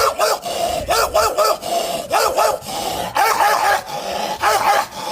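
A dog barking angrily in quick bursts of three to five loud barks, roughly one burst a second.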